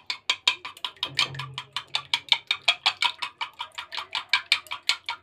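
Raw eggs being beaten by hand in a ceramic dish: a utensil clicks quickly and evenly against the dish, about six clicks a second.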